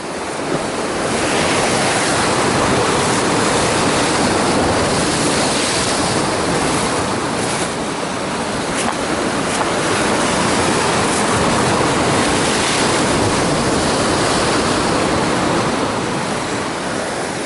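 Sea surf from a set of waves breaking and surging among rocky-shore boulders: a steady rush of white water that swells about a second in and eases slightly near the end.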